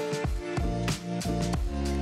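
Intro music with a steady beat of about three hits a second over held chords.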